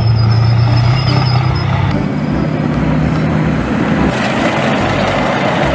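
Engine sound of a tank: a steady low engine drone with a noisy rattle over it, shifting in tone about two seconds in and again near four seconds.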